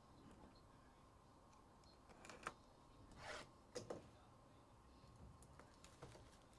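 Faint handling of a sealed cardboard trading-card hobby box, picked up and turned in the hands: a few brief rustles and taps between about two and four seconds in, over low room tone.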